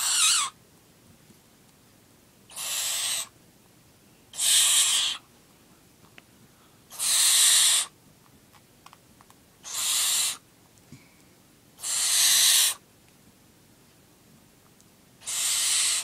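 Young barn owl chick making harsh hissing calls, seven of them, each under a second long and about two seconds apart: the rasping food-begging call of a barn owl nestling being hand-fed.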